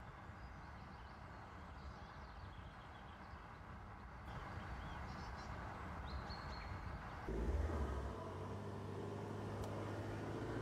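Volkswagen Tiguan SUV driving on a dirt track. Its engine and tyres are faint at first and get clearly louder from about seven seconds in as it comes close. Birds chirp a few times before that.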